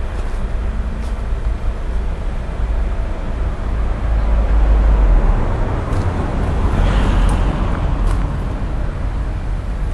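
Low, steady noise of road traffic in a jam, growing louder for a few seconds in the middle.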